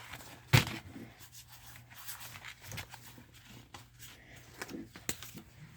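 Pokémon trading cards being handled: soft rubbing and scattered light taps, with one sharp click about half a second in.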